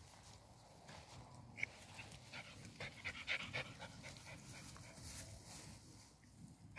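Miniature pinscher panting softly as it noses through clover, with a cluster of short crisp crackles about three seconds in.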